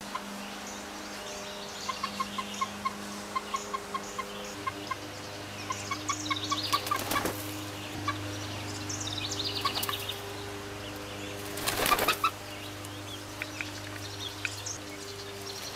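Young hens on a branch roost giving short, quick calls several a second, with a few bursts of wing flapping as birds hop about on the perch.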